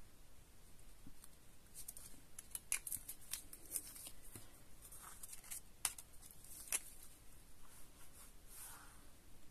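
Quiet paper-craft handling: card stock shifted and rustling on a craft mat, with scattered light clicks and taps as a glue applicator is put down and pressed onto the card.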